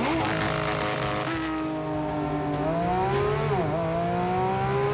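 Porsche 911 GT3 RS's naturally aspirated flat-six accelerating hard from a standing start. Its note climbs steadily, dips at a quick upshift about three and a half seconds in, then climbs again.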